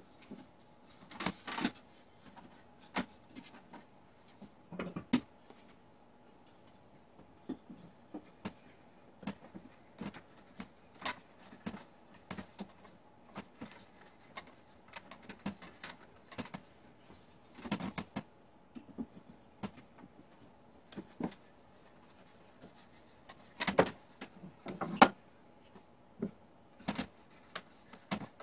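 Wooden parts of a rocking chair knocking, tapping and rubbing as they are pushed by hand into notched joints: irregular short knocks and clicks, a few of them louder, the loudest near the end.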